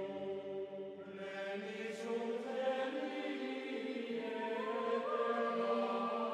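Slow choral chant with long held notes that move in slow steps, as background music.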